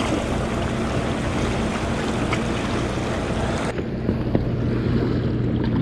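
Sea waves and wind buffeting the microphone, over a steady low engine-like hum. The high hiss drops away abruptly about two-thirds of the way through.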